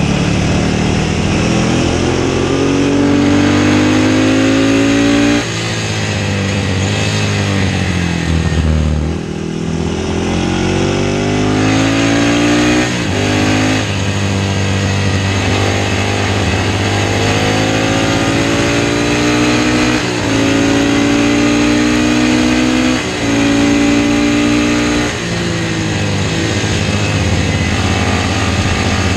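Classic racing motorcycle engine at race pace. It revs up again and again, with a short dip in pitch at each gear change, and falls in pitch for a longer stretch about nine seconds in before climbing again.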